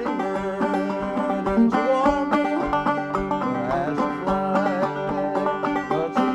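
Clawhammer banjo in sawmill (modal) tuning, played as a steady run of quick plucked notes with a repeating drone string.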